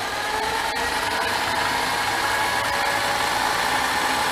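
Metal lathe running under power: a steady mechanical whine with several tones that rise slightly in pitch in the first second, then hold steady.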